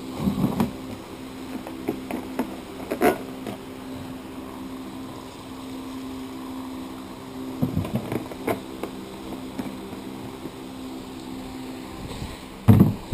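Knocks and clunks of a plastic jerry can of diesel being handled and tipped over a plastic tub, with the loudest thump near the end, over a steady background hum.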